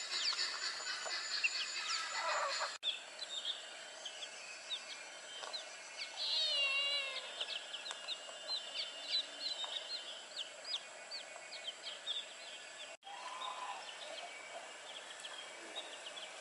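Chicks peeping: many short, high cheeps in quick succession, over a steady high-pitched background tone.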